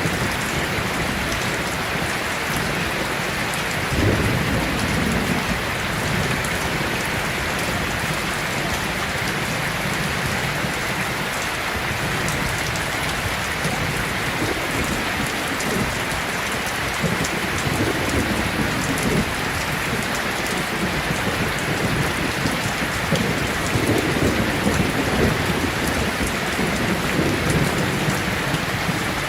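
Heavy rain falling steadily with thunder rumbling low underneath. A sharper roll of thunder comes about four seconds in, and longer rolling rumbles follow in the second half.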